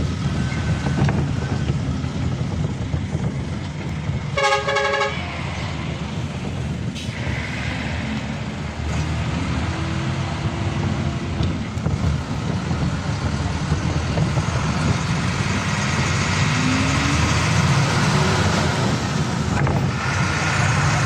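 Bus engine running with a steady low rumble, heard from inside the moving bus. A vehicle horn sounds once, briefly, about four and a half seconds in.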